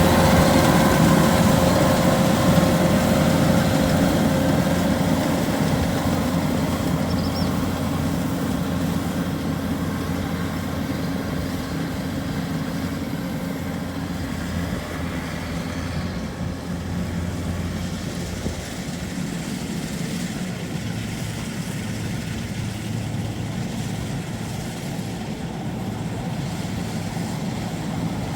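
Kubota rice combine harvester's diesel engine running steadily, growing gradually fainter over the first half as the machine moves away.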